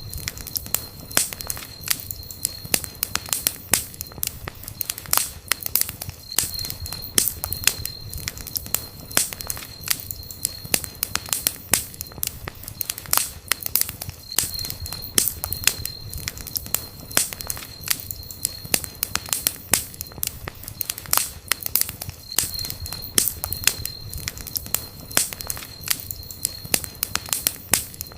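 Wood campfire burning, crackling with many irregular sharp pops over a low steady noise. A thin high whistle comes and goes every few seconds.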